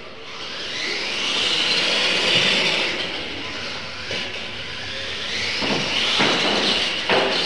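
Radio-controlled monster trucks' electric motors whining as the trucks race off the start, the pitch rising as they accelerate, easing, then rising again. A few sharp knocks near the end.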